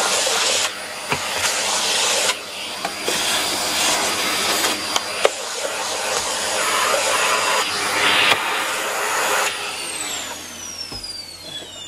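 Vacuum cleaner running, its noise swelling and dropping, with a couple of sharp knocks. Near the end the noise stops and a whine falls steadily in pitch as the motor winds down.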